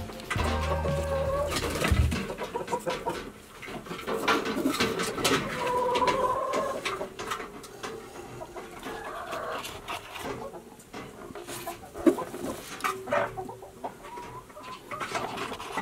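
Hens clucking and calling, with sharp clicks and knocks of eggs being picked up and set into a cardboard egg carton. The tail of some music ends about two seconds in.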